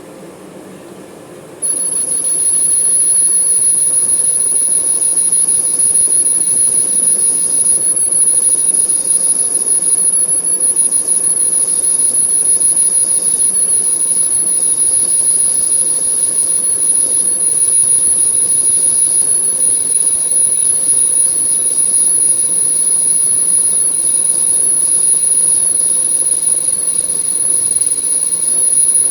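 Manual lathe cutting metal: the cutting tool squeals on the workpiece, a loud, high-pitched, steady whine that starts suddenly about two seconds in, over the low hum of the running lathe.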